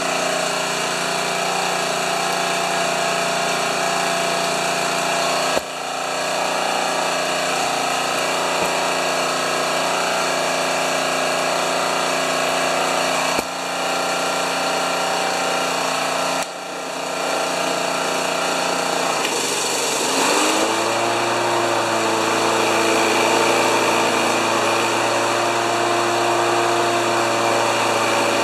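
Honda HRA214 lawn mower's engine running steadily. Three sharp clicks come through it, each followed by a short dip in level. About twenty seconds in, the pitch bends upward and settles at a new steady note.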